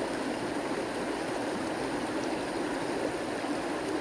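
Steady rushing of a nearby stream, running water with no breaks or changes.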